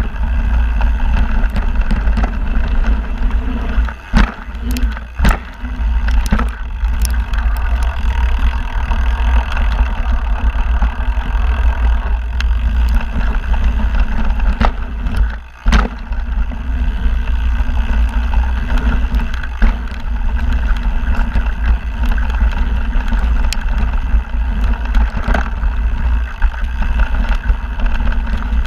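Mountain bike descending a dirt singletrack, heard through an action camera: steady wind rumble on the microphone with tyre and frame noise. Several sharp knocks from the bike hitting bumps come about four to seven seconds in and again near the middle.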